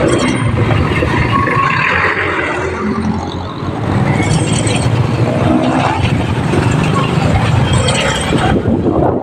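Motorcycle running while riding along a street, its engine mixed with heavy wind noise on the phone's microphone.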